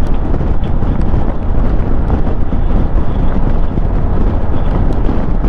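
Strong wind buffeting the microphone of a motorcycle moving at speed in gusty crosswind, a loud, steady rumble heaviest in the low end, with riding noise underneath.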